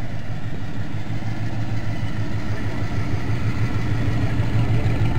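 Exposed V8 of an early-1940s Ford pickup hot rod running at low speed as the truck rolls past, a steady pulsing rumble that grows a little louder as it nears.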